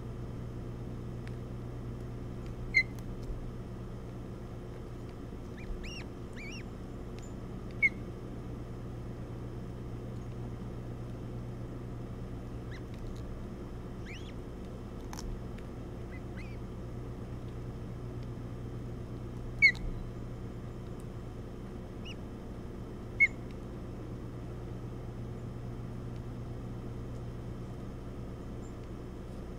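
Ospreys at the nest giving short, sharp, high chirps, spaced several seconds apart, over a steady low hum.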